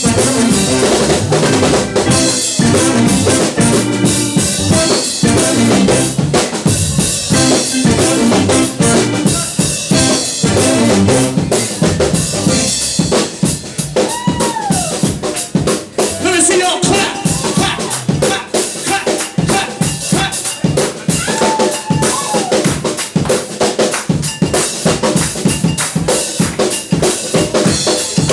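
Live funk band playing an instrumental groove, with a busy, prominent drum kit (snare, rimshots and kick) over electric bass and keys. A few bending notes stand out near the middle.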